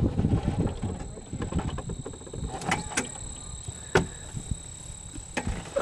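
Golf cart moving over rough ground: a low, uneven rumble with a few sharp clicks and rattles, and a faint steady high whine underneath.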